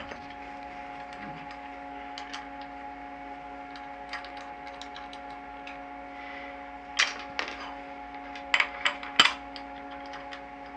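Metal clinks and knocks of a CNC machine vise and its aluminum jaws being handled: a few light ticks, then a cluster of sharper knocks about seven to nine seconds in. Under them a steady machine hum with several fixed tones.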